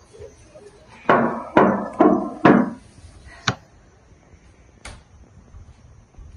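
Four knocks on a wooden door in quick succession, each with a short ring, followed by two sharp clicks.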